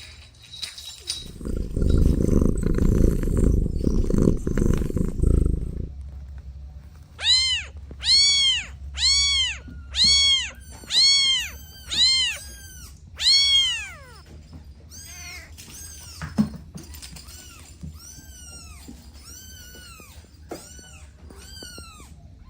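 Kitten meowing: seven loud, high meows about a second apart, each rising and then falling in pitch, followed by a run of fainter meows. Before them comes a loud low rumble lasting about five seconds.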